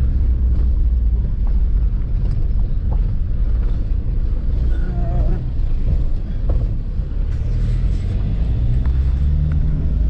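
Car on the move: a steady, loud low rumble of engine and road noise, with a few light knocks.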